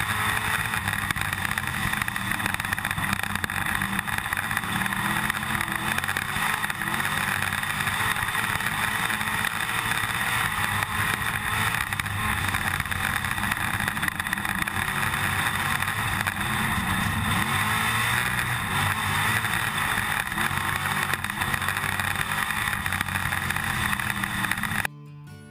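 IMCA stock car's engine running on the track, heard from inside the car over a constant rattle, its pitch wavering. About a second before the end it cuts to acoustic guitar music.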